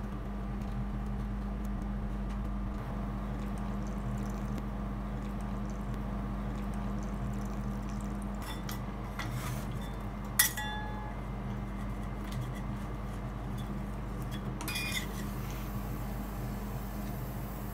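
Steady low hum of a rolled-ice-cream machine's freezing plate, with a few sharp metal clinks as aluminium cans and steel spatulas are handled and set down on the steel plate; the loudest clink comes about ten seconds in.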